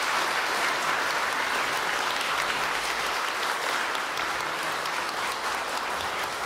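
Audience applauding: dense, steady clapping from many people that eases slightly toward the end.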